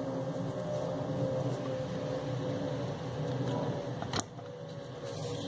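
Steady fan-like room hum, with one sharp click about four seconds in.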